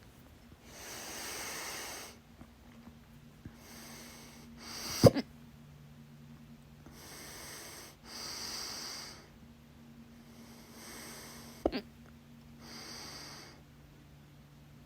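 A woman hiccupping loudly: two sharp hiccups, each a quick double catch, about six seconds apart, with audible breaths in and out between them.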